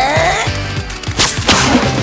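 Background music with a steady beat, with a brief swishing sound effect a little over a second in.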